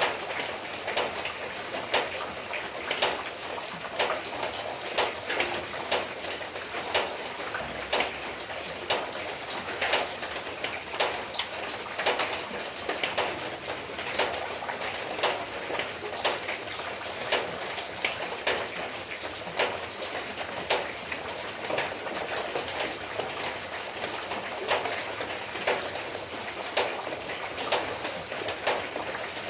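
Light rain falling steadily, a continuous hiss broken by frequent sharp drops and drips landing irregularly, several a second.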